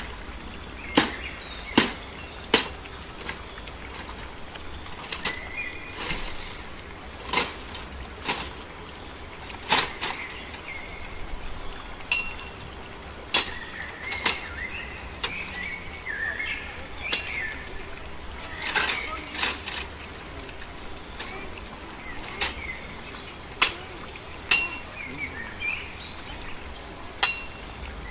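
Machete chopping into bamboo stems: sharp single chops at irregular intervals, some in quick pairs. A steady high insect drone and a few bird chirps run underneath.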